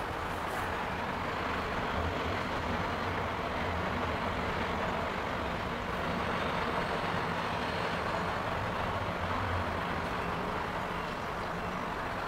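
Steady mechanical rumble with a low hum under an even wash of noise, like vehicle traffic.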